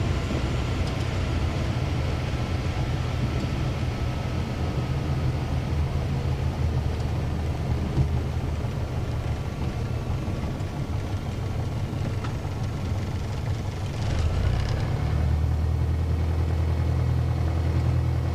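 Light aircraft's engine running at low power after landing, a steady low drone heard in the cockpit; about 14 seconds in the engine note steps up and gets louder as power is added.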